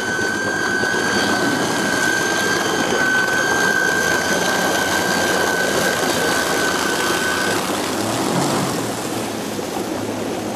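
Electric racing hydroplane with Cedric Lynch's electric motors pulling away at speed, with a steady high whine from the electric drive over the rushing of propeller spray and water. The whine cuts out about three-quarters of the way through as the boat draws away, leaving the rush of water.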